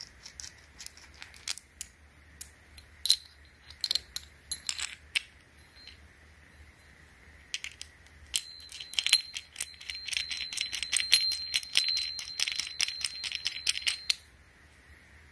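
Small steel parts of a hole saw set, the arbor with its pilot drill bit and a toothed saw cup, clicking and clinking together as they are handled. About eight seconds in comes a quick run of metallic clicks with a thin ringing note, lasting about six seconds, as the saw cup is turned onto the arbor.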